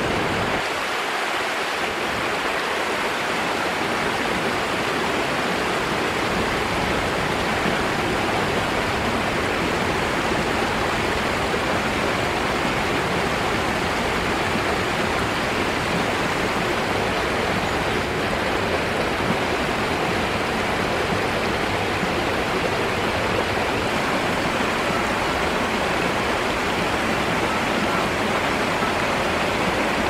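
Shallow stream water running over rocks in a small waterfall: a steady, unbroken rush of water.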